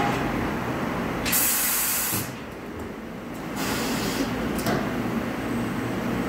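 Two bursts of compressed air hissing at a pneumatic tyre-changing machine: a loud one about a second in and a weaker one near the middle, over a steady low rumble in the shop.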